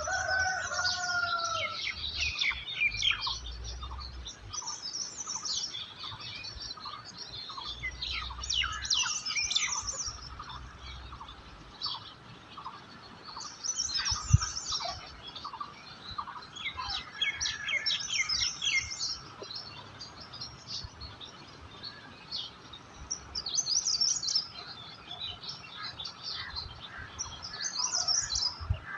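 Several small birds chirping and twittering in overlapping bursts of quick, high notes, over a faint steady high tone. There is a single sharp click about halfway through.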